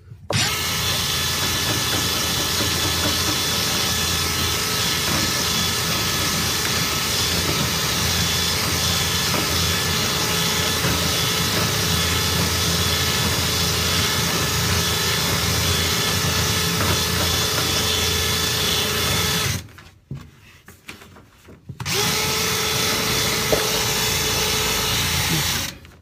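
Power drill spinning a rotary dryer vent cleaning brush through the vent duct. It runs steadily for about twenty seconds, stops for about two seconds, then runs again for a few more seconds.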